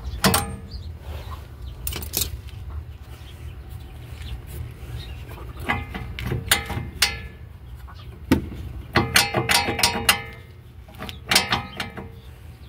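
Metal clinks and clanks from a car's front disc-brake caliper being pried and rocked by hand, its loose brake pad knocking with play in the caliper. The clanks come in separate clusters, the busiest about nine to ten seconds in, over a steady low hum.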